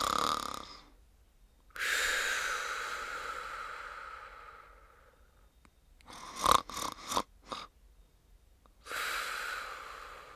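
Comic snoring: a long, hissy breath that fades out, a quick run of four or five short snorts, then another long breath.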